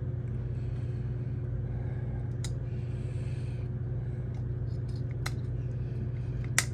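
A steady low hum runs throughout, with a few sharp clicks of small hard parts being handled: the AAA batteries and battery pack of a keypad door knob. The loudest click comes near the end.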